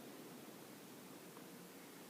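Near silence: steady faint hiss of room tone.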